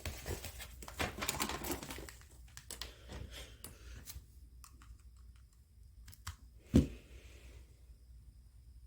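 Handling noise as a cable is plugged into an iPod: rustling and a run of small clicks, quieter after about four seconds, with one louder knock near seven seconds in.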